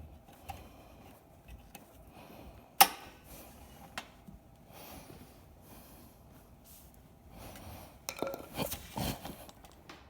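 Metal tire levers and tools clinking against a motorcycle wheel rim while a wide tire is worked by hand: one sharp loud clack about three seconds in, a lighter one a second later, then a flurry of knocks and scrapes near the end.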